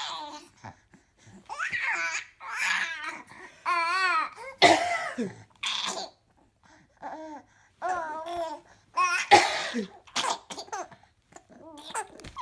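Babies laughing and squealing in repeated bursts of high, wavering giggles, mixed with an adult woman's coughs a few times; the babies are laughing at the coughing.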